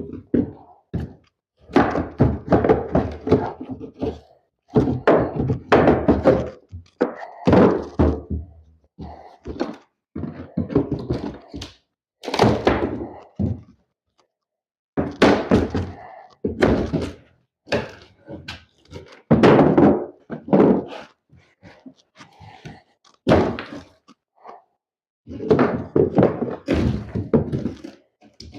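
Repeated heavy thuds and knocks, in bursts of several quick strikes, from rotten wooden subfloor being pried and knocked loose during tear-out.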